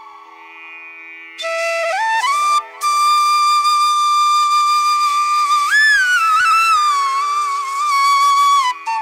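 Background music: a flute playing a slow melody of long held notes with pitch slides, over a steady drone, coming in about a second and a half in.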